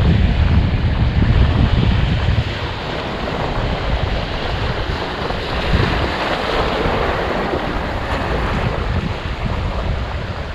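Wind buffeting the microphone over the sound of sea waves washing and breaking. The wind gusts hardest in the first few seconds, and a wave swells up about six seconds in.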